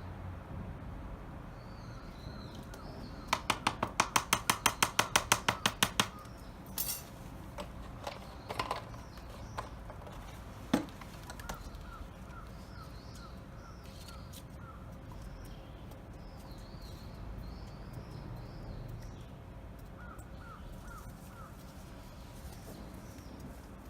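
Outdoor background of birds chirping, with short repeated calls now and then. About three seconds in comes a rapid run of around fifteen sharp knocks, about five a second, lasting some three seconds, and a few single knocks follow.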